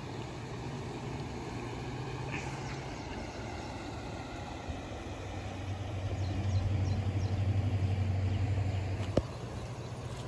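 A low engine hum, steady at first, then louder and pulsing from about six seconds in, cut off by a sharp click near the end.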